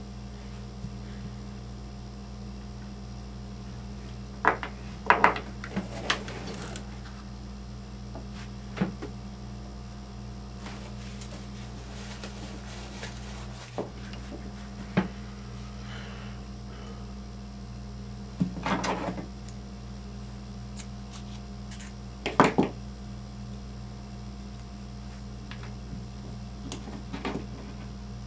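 Small RC truck parts clicking and clattering on a tabletop as they are handled, in scattered short knocks, a couple of them quick double or triple clatters, over a steady low electrical hum.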